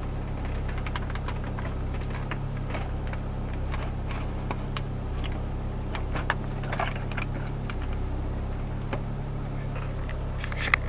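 A steady low hum runs underneath scattered small clicks and taps, like parts or wires being handled.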